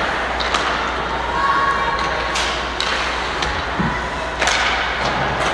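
Ice hockey play in an arena: a steady scraping background with a few sharp knocks and thuds from sticks, puck and boards, and voices in the background.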